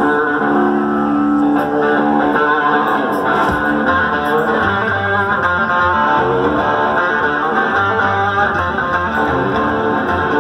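Live rock band playing an instrumental passage without vocals: electric guitar chords over bass guitar and drums, amplified through a PA. The bass line comes in stronger about four seconds in.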